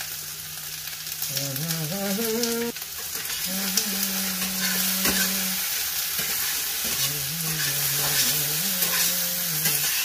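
Okra and potato pieces sizzling steadily in hot oil in a frying pan while a metal spatula stirs and scrapes them, with occasional clicks of the spatula on the pan. A low humming holds a few notes that step in pitch, in three stretches.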